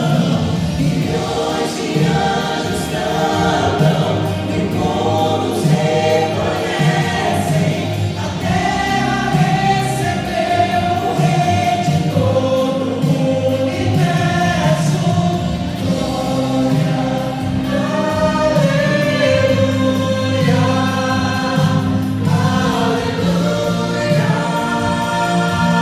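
A vocal group singing a Christian gospel song, several voices together, with steady low accompaniment underneath.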